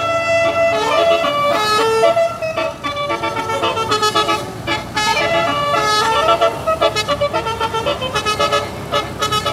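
Tour bus telolet horn playing a tune on its air horns. Short pitched notes step up and down one after another and come faster in the second half.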